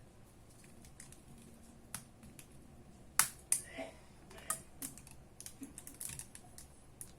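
Irregular sharp clicks and taps of small hard objects being handled, with a few louder ones between about three and four and a half seconds in.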